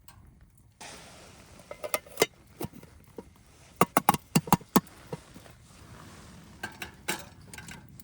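Metal cookware and utensils clinking and knocking. There are a few clinks, then a quick run of about six, then a few more near the end, each with a short ring.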